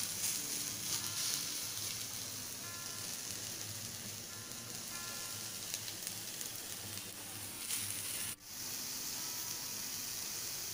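Sliced onions sizzling with a steady hiss as they roast on a hot tava. The sound briefly cuts out about eight seconds in.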